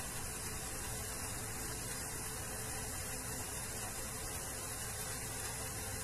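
Steady hiss with a low mains hum from an amplifier's speaker, with no music coming through.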